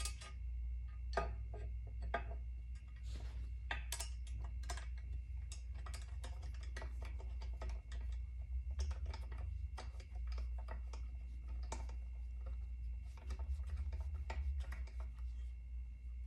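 Small irregular clicks and taps of metal pins and hardware being fitted by hand into a Can-Am Ryker back-seat bracket, over a low steady hum.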